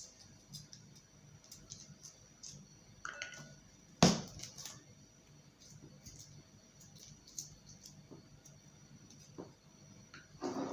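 Light clicks and taps from garlic cloves being peeled and handled, with one sharp knock about four seconds in.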